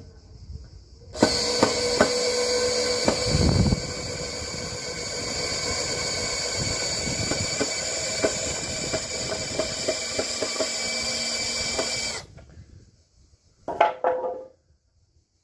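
A machine or motor running steadily for about eleven seconds, with a high hiss, a couple of steady tones and scattered clicks, then stopping suddenly; a brief clatter follows near the end.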